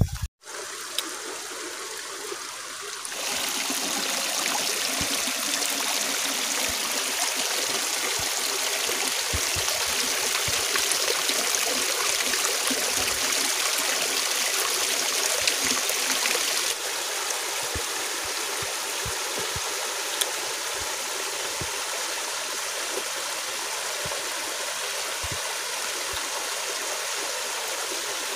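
Shallow rocky stream trickling and splashing over stones in a steady rush of water. It gets louder about three seconds in and a little quieter past the middle.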